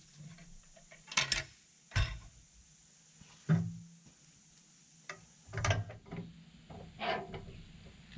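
Scattered metallic clanks and knocks, about five over several seconds, from the steel bed, log stops and clamp of a Woodland Mills HM122 portable bandsaw mill as a large log is shoved and levered into place for sawing; the mill's engine is not running.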